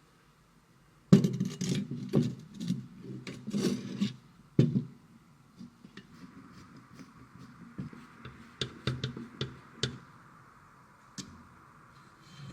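Hands handling PC parts and packaging: a sudden burst of rustling and knocking about a second in, then lighter scattered clicks and taps.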